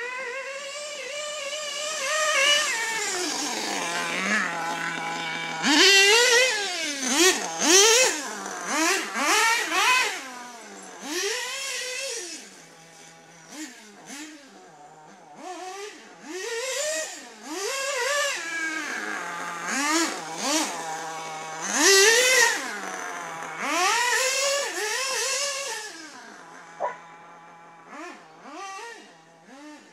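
Novarossi 528 nitro engine of a Hyper 9 RC buggy revving again and again, each burst shooting up in pitch and falling back to a steady idle between them.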